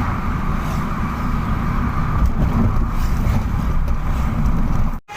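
Steady low rumble of road and engine noise from moving vehicles, with some wind noise, cutting off abruptly near the end.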